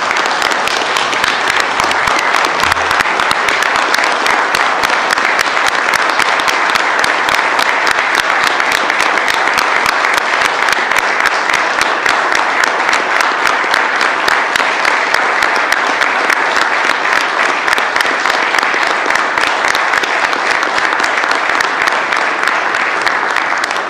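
Sustained applause from many people clapping, a dense, steady patter of claps that holds at one level throughout.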